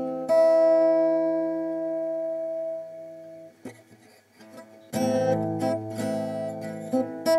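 Acoustic guitar music: a strummed chord rings out and fades, the music drops away for about a second and a half in the middle, then strumming starts again.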